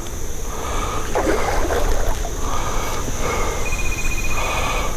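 A hooked fish being reeled in on a rod, the reel winding in several spells of a second or so, over a low rumble of wind on the microphone.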